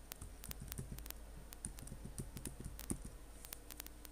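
Computer keyboard keys clicking as a word is typed: a quick, irregular run of faint key presses.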